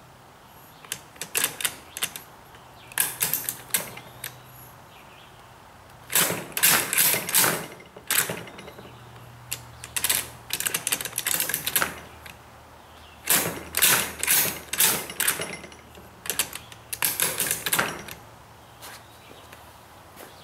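Doug Nash manual transmission being shifted by hand through its gears with a Long shifter on the bench: the lever, linkage rods and selector rails give bursts of metallic clicking and clunking. The bursts last a second or two, with short pauses between.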